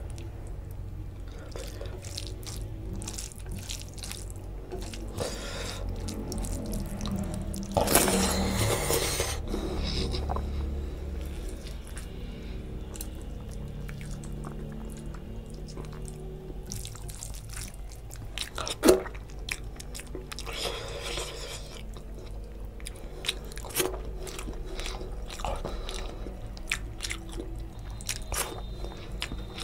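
Bare fingers squishing and mixing curry-soaked rice on a plate, with close-miked chewing and mouth sounds as handfuls are eaten. A sharp click stands out about two-thirds of the way through.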